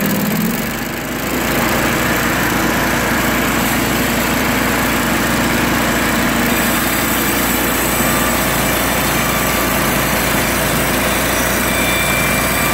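Norwood HD36 portable bandsaw mill running steadily, its gas engine driving the band blade through a large log.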